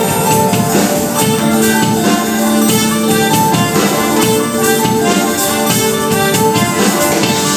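Small live band playing: drums with sustained notes from violin and other instruments over them, at a steady level.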